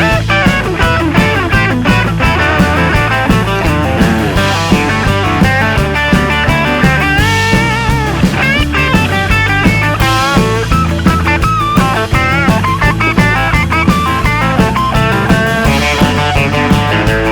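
Background rock music with electric guitar over a steady beat.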